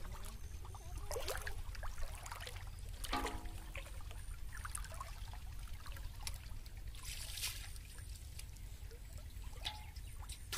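Pond water sloshing and trickling around a person wading through it, with a few short splashes, the largest about seven seconds in, over a steady low rumble.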